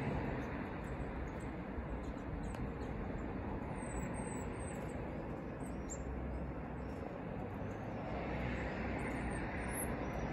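Steady low rumble of distant road traffic. Small birds give short, high-pitched, falling chirps: a run of them a little before halfway and a few more near the end.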